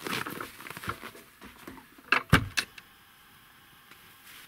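Rustling and scuffing as a person squeezes in through a low doorway, then a wooden plank door of a log hut banging shut: three sharp knocks a little after two seconds in, the middle one loudest.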